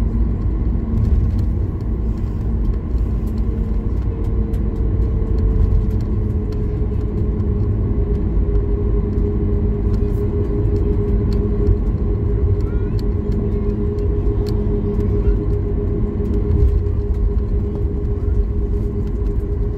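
Cabin sound of a Boeing 737 MAX 8 taxiing: a steady low rumble from the airframe, wheels and CFM LEAP-1B engines at low thrust. A steady engine hum runs over it and steps up slightly in pitch about four to six seconds in. Light clicks and rattles from the cabin come and go.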